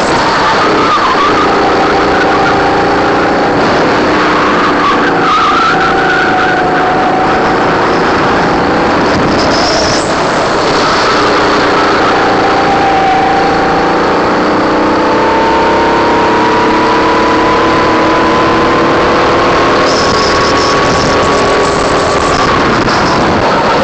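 Racing kart engine heard loud from onboard, running under load through a lap. The pitch drops about halfway through as the kart slows for a tight corner, then climbs steadily for several seconds as it accelerates out.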